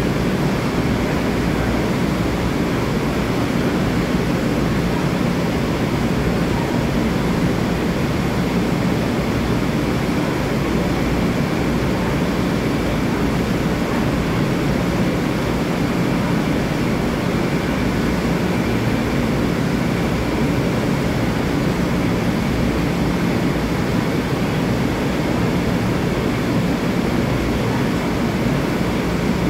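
Steady hum and rush of a Long Island Rail Road M3 electric train's onboard equipment running while the train stands at the platform, not yet moving.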